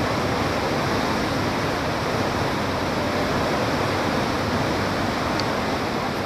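Steady rush of wind and choppy river water heard from the open deck of a river cruise ship.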